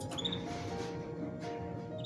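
Background music: a slow melody of held notes stepping from one pitch to the next.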